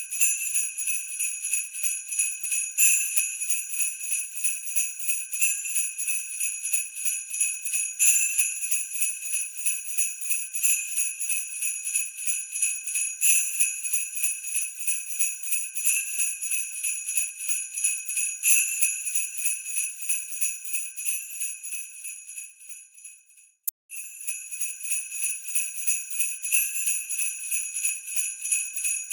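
Sleigh bells shaken in a steady rhythm, about four shakes a second, jingling continuously. About three quarters through they fade out to a moment of silence, then after a click the jingling starts again at full level.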